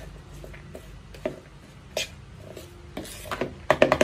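A metal spoon stirring chopped vegetable-and-meat stuffing in a plastic bowl, rubbing and scraping through the mix. Single sharp clicks sound about a second and two seconds in, and a quick run of clicks comes near the end.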